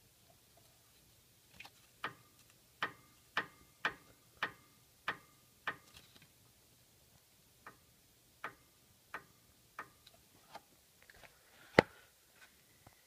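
Rocker arm on a Kawasaki FD620D engine being pushed side to side by hand, its lateral play on the shaft giving a run of sharp metallic clicks with a short ring, roughly two a second. The clicks pause briefly and then resume, and a single louder knock comes near the end.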